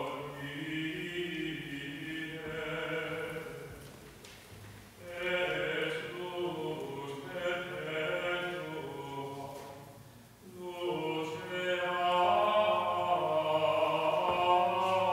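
Choral singing in slow, sustained chant-like phrases, three long phrases with brief breaks between them.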